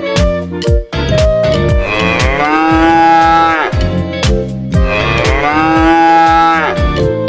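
A cow mooing twice, each moo a long call of about two seconds that rises, holds and drops at the end, over background music with a steady drumbeat.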